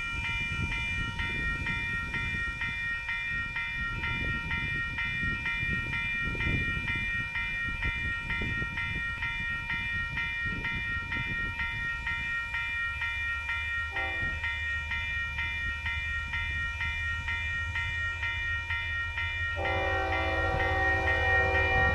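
Approaching Union Pacific diesel locomotives sounding their air horn: a short blast about two-thirds of the way in, then a long, louder blast near the end, over a low engine drone that grows as the train nears. A steady, high, evenly pulsing chirr of insects runs underneath.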